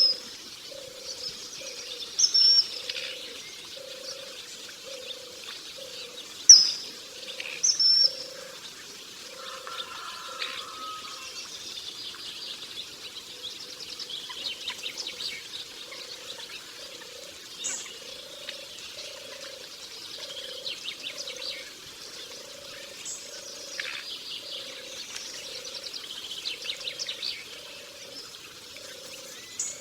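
Forest ambience: birds chirping and calling, with a few sharp, louder chirps in the first eight seconds and some rapid trills later. Underneath, a frog's low call pulses about once a second.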